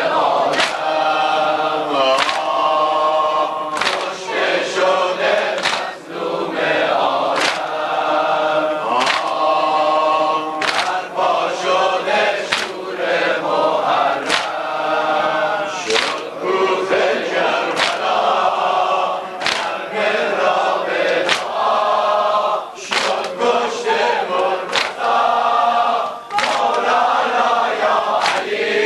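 Large crowd of men chanting a mourning lament in unison while beating their bare chests, the slaps landing together about once a second.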